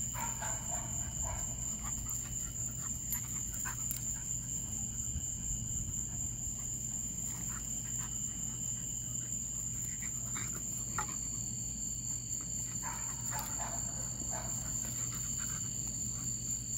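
Steady high-pitched chorus of night insects, with a steady low hum underneath and scattered faint rustles.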